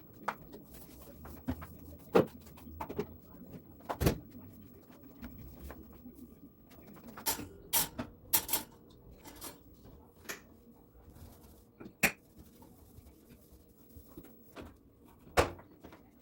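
Scattered, irregular clicks and knocks, about a dozen in all, as of household objects being handled and set down, with the sharpest strikes about four seconds in, about twelve seconds in and near the end.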